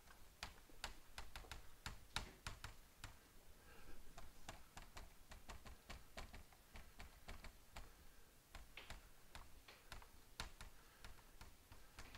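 A dry-erase marker writing on a whiteboard: faint, irregular clicks and taps of the tip meeting the board, several a second.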